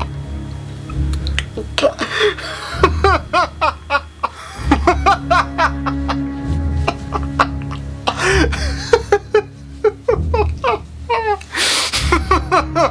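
A man performing a Joker-style laugh in repeated fits of high, rising and falling 'ha's over background music with a low sustained drone.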